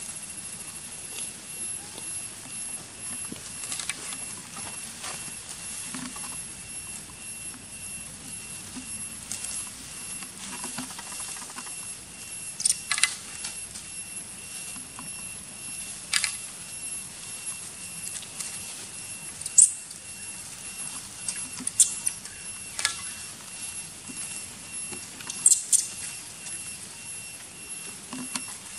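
Macaques feeding from a metal tray of chopped fruit: soft eating and rustling sounds with several sharp clicks and taps, mostly in the second half, over a faint steady high whine.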